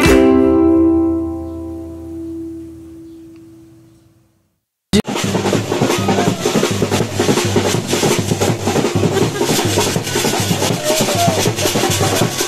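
Plucked-string background music fading away over the first four seconds, then, after a brief silence, loud live drumming in a fast steady beat with a flute playing over it.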